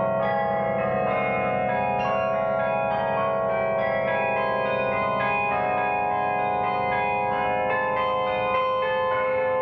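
A 60-bell bronze carillon played from its baton keyboard: a melody of bell notes struck in quick succession, each ringing on over sustained low bass bells.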